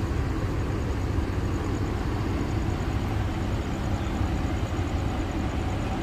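Diesel bus engine idling nearby: a steady low rumble.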